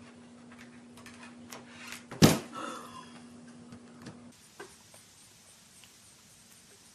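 Lid of a hard-shell guitar case slamming shut: a single loud bang about two seconds in, after a few light knocks.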